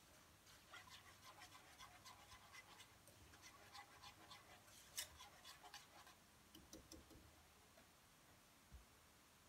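Faint scraping and light clicking of a whisk stirring milk sauce in a nonstick pan, stopping about six seconds in.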